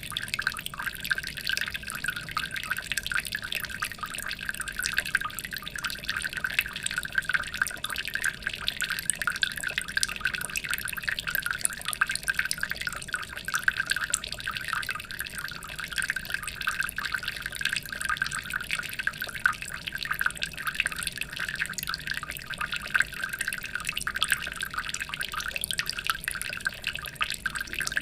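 Aquarium water trickling and dripping steadily: a dense, unbroken patter of small splashes.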